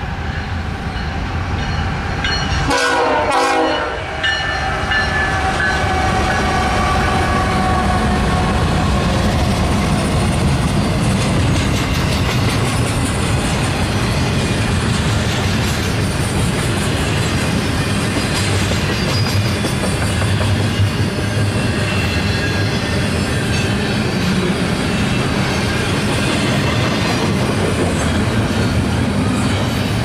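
GE Evolution-series diesel locomotives leading a double-stack intermodal train past, with a short horn sound about three seconds in. After that comes the steady rumble and clatter of the wheels on the rails as the container cars roll by.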